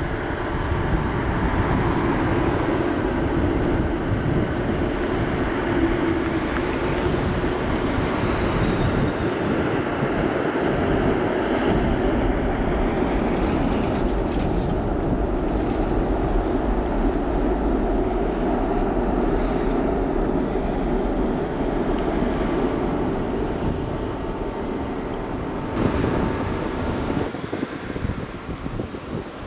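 Large military aircraft's engines running steadily, a loud even roar with faint steady whines in it. About 26 seconds in the sound changes and drops away to something quieter and more uneven.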